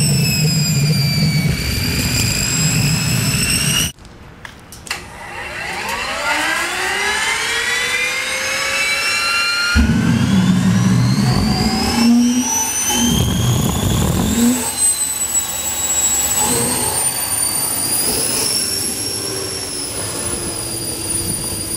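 Boeing 502 gas turbine engine of a jet-powered hot rod: a steady high whine, then after a sudden break a start-up, its whine rising steadily in pitch as the turbine spools up. About ten seconds in a low rumble joins for a few seconds with some surges, and the engine settles into a steady high whine.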